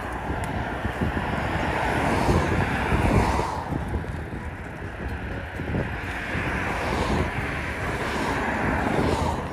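Wind rushing over the microphone with the rolling noise of a moving e-bike, swelling a few seconds in and then easing.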